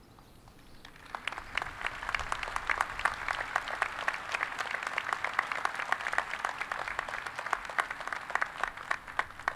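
Audience applauding. The clapping builds about a second in, holds dense and steady, and thins out near the end.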